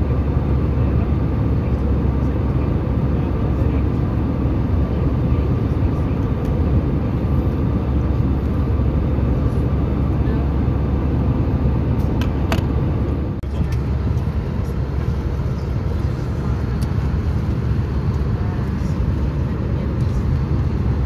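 Steady low rumble and hum inside an Airbus A320 cabin, with a thin, faint whine above it. A few light clicks come a little past halfway, and the hum drops slightly just after.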